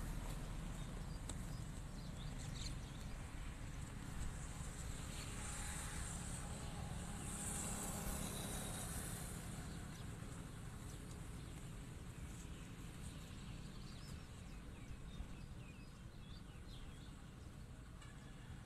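Outdoor background noise: a steady low rumble with faint high chirps now and then, slowly growing quieter.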